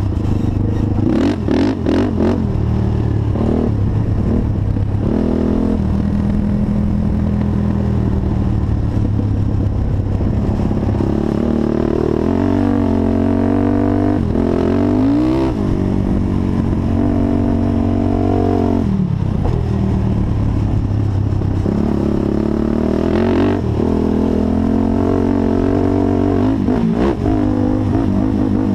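Honda TRX450 quad's single-cylinder four-stroke engine being ridden hard, revving up and falling back over and over as the throttle is worked. There are a few sharp clatters near the start.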